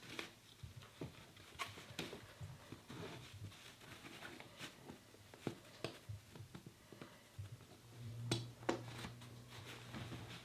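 Faint rustling and scraping of nylon webbing straps being threaded through and pulled tight on a loaded backpack, with scattered light clicks. A faint low hum comes in near the end.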